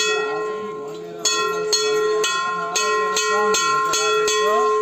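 Hindu temple bell struck over and over, about two strikes a second, each ringing on into the next so the tone never dies away.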